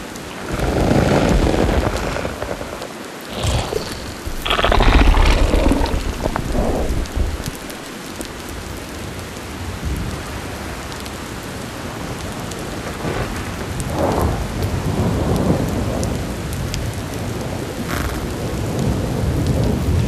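Sci-fi nature ambience from a sound-effects library: a steady rain-like hiss under deep rolling rumbles like thunder. The rumbles swell about a second in and again, loudest, around five seconds in, with a few sharp ticks scattered through.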